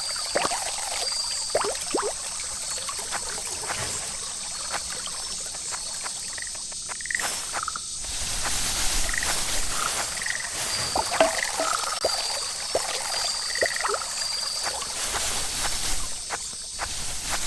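Frogs croaking in short, repeated calls, over a steady high insect trill and a faint trickle of water.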